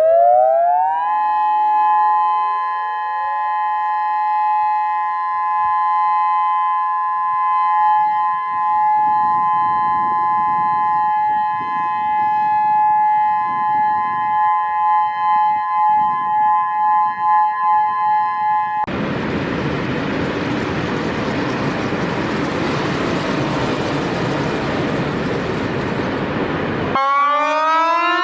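Outdoor tornado warning siren winding up, then holding a steady two-tone wail. Later its loudness swells and fades about once a second. About 19 seconds in, a loud rushing noise covers everything for about eight seconds, and near the end another siren starts winding up.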